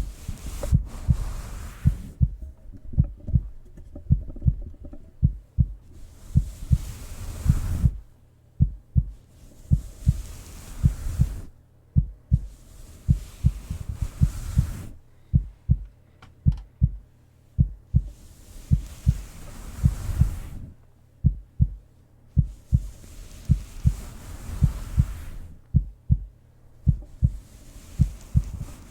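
A human heartbeat, heard close up as a steady run of paired lub-dub thumps. A soft rushing sound swells and fades every four to five seconds.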